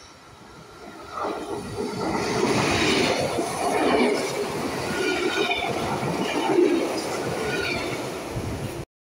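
A double-deck electric train passes close along the platform at speed. The noise builds as it approaches, and the carriages' wheels rush past on the rails with some high wheel squeal. The sound cuts off abruptly near the end.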